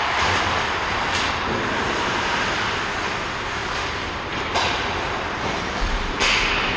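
Ice hockey play on a rink: a steady hiss of skates and rink noise, with sharp clacks of sticks and puck about a second in, at about four and a half seconds, and at about six seconds.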